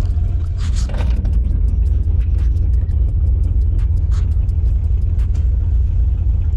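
Pickup truck's engine running, heard as a steady low rumble, with scattered light clicks and taps over it.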